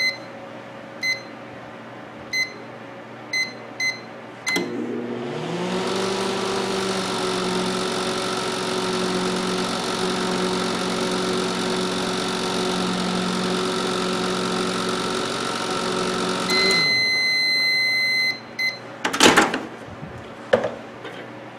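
Sharp Carousel microwave oven, working again on its replacement fuse: five short keypad beeps, then a click and the oven starts, its cooling fan spinning up into a steady hum that runs for about 12 seconds. It stops with one long end-of-cycle beep, and the door latch clacks open twice near the end.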